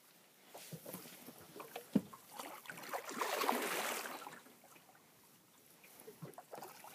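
Knocks and scuffs on an aluminium boat's deck and hull while a pike is being played on a heavily bent rod, with a sharp knock about two seconds in. A louder rushing, splashing swell follows for a second or so, the hooked pike fighting hard.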